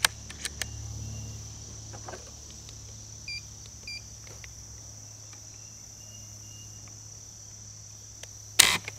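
Crickets trilling steadily in the background, with a few light handling clicks. Two short electronic beeps from a digital trigger-pull gauge a few seconds in. Near the end, one loud, sharp snap as the Benjamin 392S pump air rifle's trigger breaks under the gauge.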